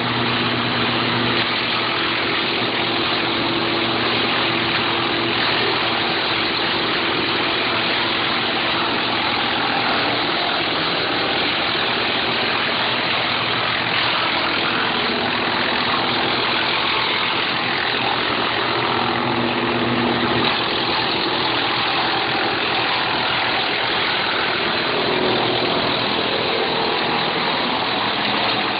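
Engine of a wood-processing machine running steadily under a dense, constant rushing noise, its low hum shifting slightly a couple of times.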